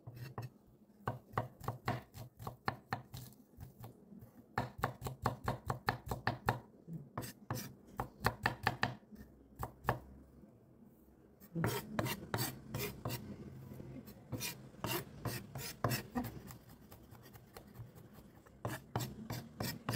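Cleaver mincing peeled garlic cloves on a wooden cutting board: runs of quick, even knife strokes, about five a second, with a couple of short pauses between runs.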